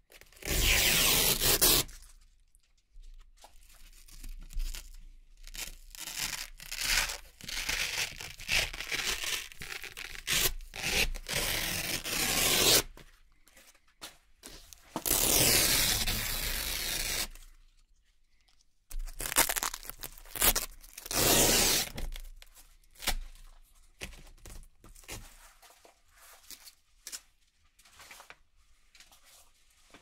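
Hook-and-loop (Velcro) strips being peeled apart by hand: long, loud rips just after the start, midway and again about twenty seconds in, with many shorter rips between and softer crackling toward the end.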